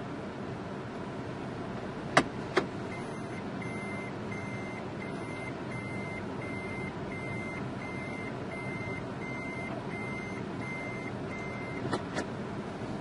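A vehicle's reversing alarm beeps evenly at about two to three beeps a second over the steady running of idling vehicle engines. There are two sharp clicks about two seconds in and two fainter ones near the end.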